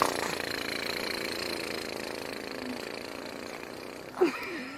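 A small motor running with a steady buzzing hum that starts abruptly and slowly fades. A short voice sound near the end.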